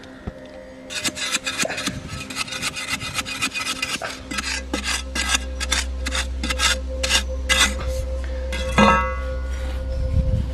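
Repeated rasping scrapes of loose, dry soil being worked inside a narrow dug hole, about three strokes a second, with one sharper knock near the end. A steady low hum comes in partway through.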